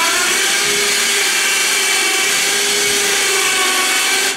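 Harbor Freight electric winch motor running under load, driving the go-kart's chain to roll the kart backward: a loud, steady electric whirring whine that stops abruptly near the end. It doesn't sound that great.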